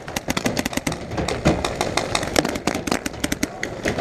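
Paintball markers firing: many sharp pops in quick, irregular, overlapping strings, several shots a second, from more than one marker.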